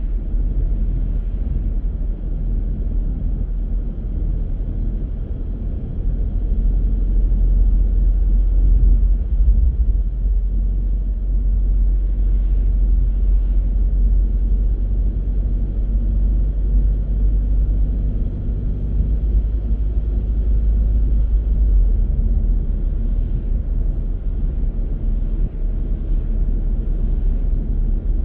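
A car driving, with a steady low rumble of engine and tyres that grows louder about six seconds in.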